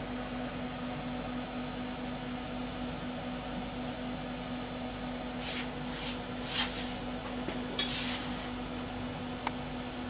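Steady low electrical hum with a few brief scuffing and rustling handling noises and one small click in the second half, as graphite stock is set up in the milling-machine vise.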